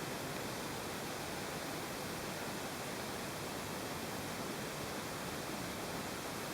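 Steady, even background hiss with a faint high steady tone in it; no distinct sounds.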